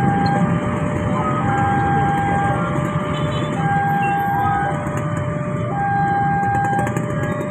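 Railway level-crossing warning alarm sounding as a train approaches: two tones, one higher and one lower, alternating about once a second. Motorbike engines run underneath.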